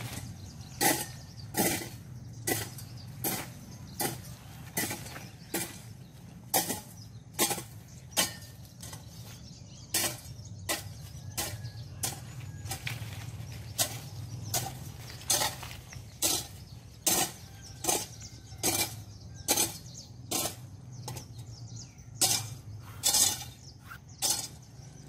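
Hoe chopping at weeds in the ground: a steady rhythm of sharp strikes, a little more than one a second, over a low steady hum.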